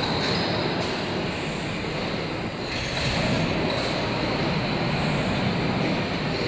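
WMTCNC VMC1580L vertical machining center milling a block under flood coolant: steady cutting noise from the spindle and cutter with a thin, steady high whine, and coolant splashing over the work.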